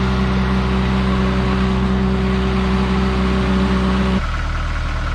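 Mini excavator's diesel engine running steadily at high throttle, then dropping abruptly to a lower, quieter idle about four seconds in.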